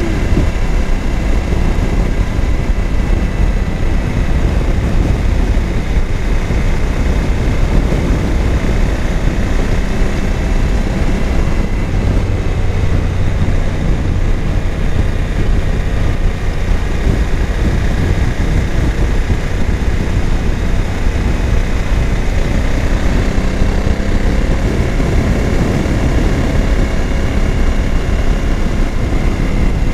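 Suzuki V-Strom 1000's V-twin engine running at steady road speed, buried under heavy wind and road noise on a bike-mounted microphone. The engine note comes up a little for a few seconds about twelve seconds in.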